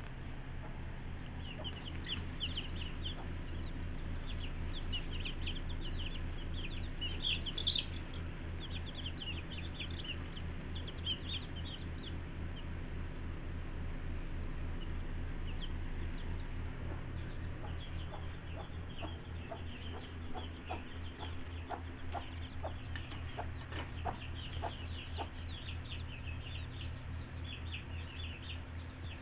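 Baby chicks peeping: many short, high chirps, in busy clusters with a lull in the middle, over a steady low hum. In the second half a run of soft ticks joins in.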